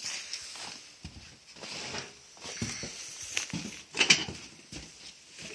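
A dog scuffling and breathing hard while tugging at a weight-machine cable, with a sharp clank from the weight stack about four seconds in.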